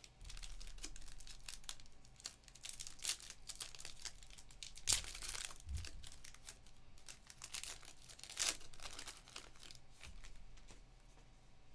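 The foil wrapper of a 2022 Topps Inception baseball card pack being torn open and pulled apart by hand: a run of crinkling and tearing crackles, the loudest about five seconds in and again about eight and a half seconds in.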